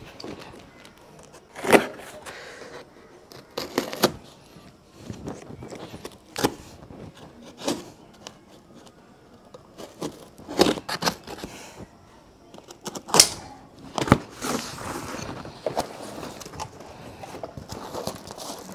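Large cardboard box being cut open with a box cutter and handled: sharp scrapes and knocks of the cardboard every second or two, with a longer rustling scrape a few seconds before the end.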